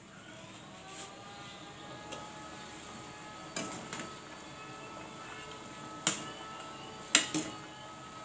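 A metal ladle stirring soup in a stainless steel pot, clinking sharply against the pot several times from about three and a half seconds in. The loudest clink comes near the end.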